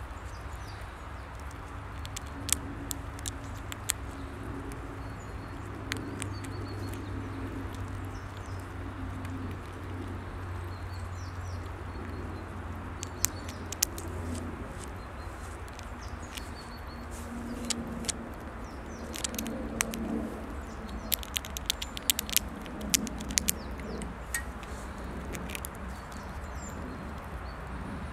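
Close-up of a Eurasian red squirrel gnawing a nut held in its paws: irregular, sharp clicks of teeth on the shell, thickest in clusters around the middle and in the second half. Under it runs a steady low hum, with faint bird chirps.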